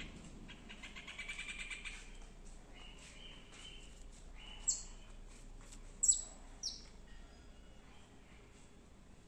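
Birds chirping: a rapid trill about a second in, then three short, sharp, high calls that fall quickly in pitch around the middle.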